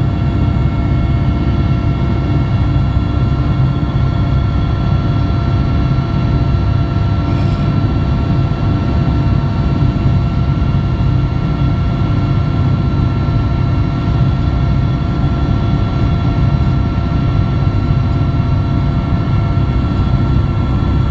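Aircraft engine noise heard inside the passenger cabin: a loud, steady low drone with a constant whine over it.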